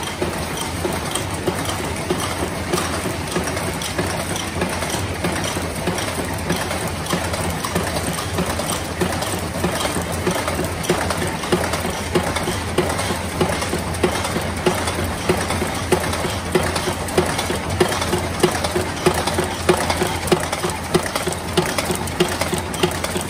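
Cold heading machine running in a screw factory, knocking evenly about three strokes a second as it feeds steel wire from the coil and forms screw blanks. Under the knock there is a steady hum of machinery.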